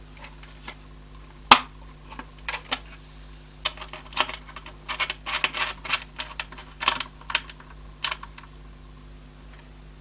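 Irregular light clicks and taps of CPU cooler mounting hardware being handled while it is fitted to a motherboard, with the sharpest click about one and a half seconds in and bunches of quicker clicks in the middle.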